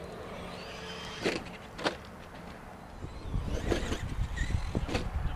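Electric 1/10-scale Traxxas Summit RC truck running on a dirt track: a faint high motor whine and a couple of sharp knocks, then from about three seconds in a loud low rumble with knocks as the truck jumps and lands on the dirt mound.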